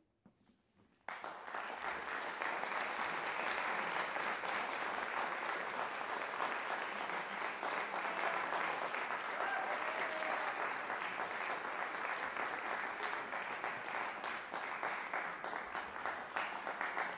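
Audience applauding, breaking out suddenly about a second in after a near-silent pause and going on steadily.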